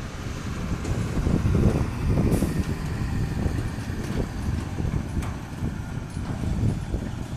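Claas Jaguar 850 forage harvester and tractor working in heavy silage, a steady low machinery rumble with wind buffeting the microphone.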